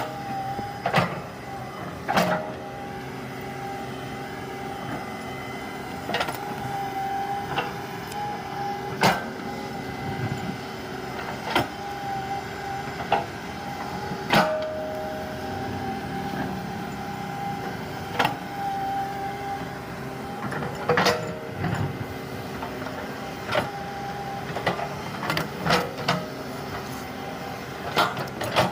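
Komatsu hydraulic excavator working, its engine and hydraulics running steadily with a constant whine. Sharp knocks and clanks come irregularly over it, a dozen or so in all.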